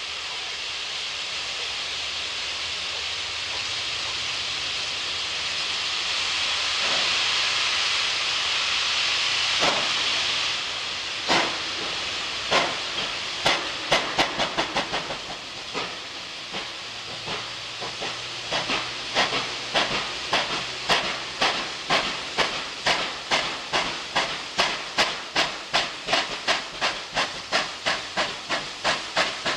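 A 38 class Pacific steam locomotive getting under way. A steady hiss of steam is followed, about ten seconds in, by exhaust chuffs that start singly and settle into an even beat of about two a second, slowly quickening.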